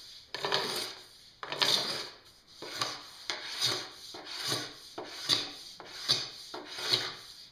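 Metal scraper being drawn over a snowboard base in repeated strokes, about one and a half a second, shaving the excess off hardened P-Tex repair drips.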